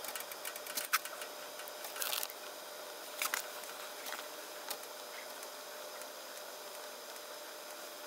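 Gas furnace with its burner lit and the blower not yet running, played back fast: a steady faint hiss with a faint steady hum and a few light ticks in the first few seconds, while the new fan-limit switch warms toward turning the blower on.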